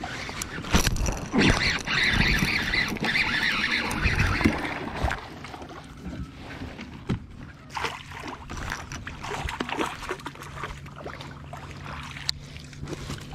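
Hooked fish splashing and thrashing at the surface for the first few seconds as it is reeled in to a kayak, then scattered clicks and knocks of rod, reel and net being handled in the boat.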